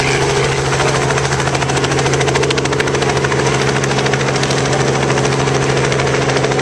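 Light two-bladed helicopter flying low and pulling away: a steady engine drone with a rapid, even chop from the main rotor blades.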